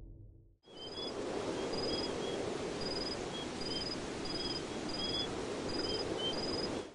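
Night ambience of crickets chirping in short, high, evenly repeated chirps over a steady background hiss, fading in about half a second in.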